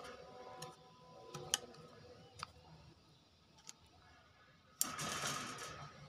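Caged hill myna: a few sharp clicks and taps, then a harsh rasping burst about a second long near the end.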